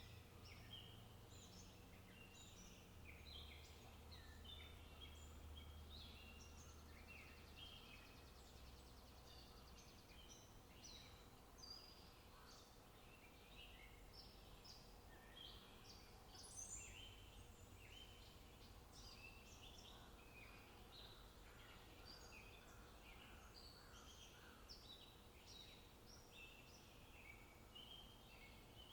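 Faint small birds chirping: many short, high chirps overlapping, over a low steady hum.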